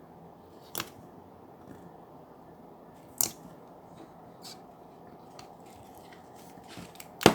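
A few sharp clicks or snips over a low steady hiss: one about a second in, a stronger one at about three seconds, fainter ones after, and the loudest just at the end.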